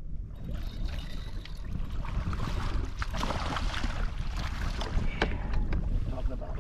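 A hooked fish splashing at the surface as it is scooped into a landing net, most of the splashing coming in the middle of the stretch, over a steady low rumble of wind on the microphone and water against the hull.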